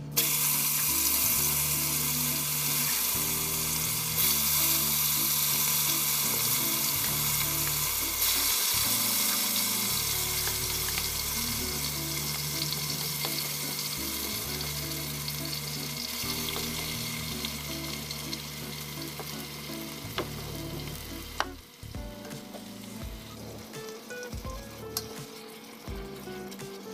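Beef chunks searing in hot oil in a deep pot, a loud sizzle that starts suddenly as the meat goes in, then slowly fades and drops lower about 21 seconds in. A wooden spoon stirs the pieces as they seal.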